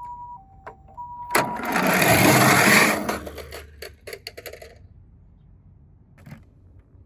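A Japanese ambulance's two-tone 'pee-poh' siren sounds one high-low-high cycle. Then a loud rattling clatter of toy cars running down a plastic slide swells for about a second and a half and trails off into a few small clicks and knocks.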